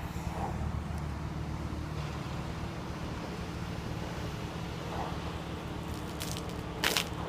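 Engine idling steadily with a low, even hum. Sharp clicks come near the end.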